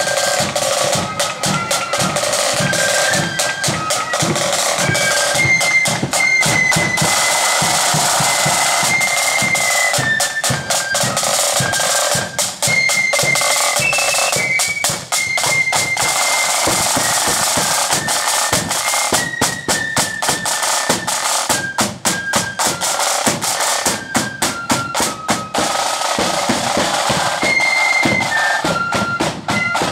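Marching blood-and-thunder flute band playing: a melody of high flute notes over rapid snare drum rolls and a steady bass drum beat.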